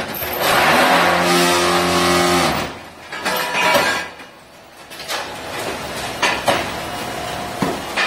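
Daewon Gigong Dw-40 automatic brick-forming machine working through a cycle. A loud, steady vibrating hum runs for about two and a half seconds while the mix is compacted in the mould, then stops. Knocks and clanks follow as the press head and mould move and lift off the formed bricks.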